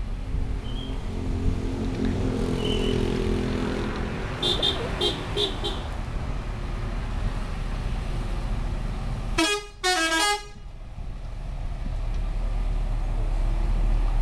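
Scania K360iB coach engine pulling up a short incline at low speed, with four short high beeps about four and a half seconds in. About nine and a half seconds in, two loud blasts of a multi-tone "telolet" bus horn, each stepping through several notes.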